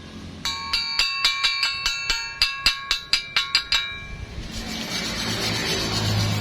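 A hammer rapidly striking steel, about four ringing blows a second, each ringing at the same few pitches, typical of chipping slag off a weld on steel tubing. About four seconds in the strikes stop and a steady hiss with a low hum takes over.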